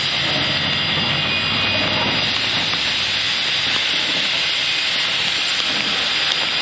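Steady, loud hiss of steam blowing from the open cylinder cocks of Climax geared steam locomotive #3.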